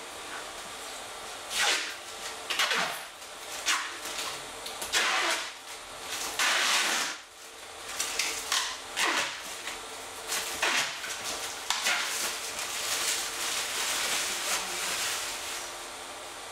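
Thin protective plastic film being peeled and pulled off an acrylic sheet by hand: a string of short, irregular rasping rips and crackles, about a dozen over the stretch.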